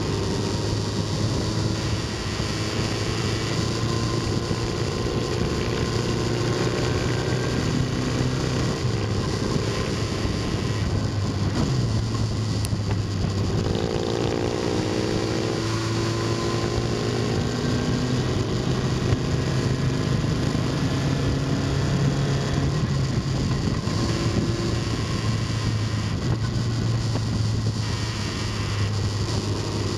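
Motorcycle engine running under way, with wind rushing over the microphone; the engine note rises and falls with the throttle through the bends.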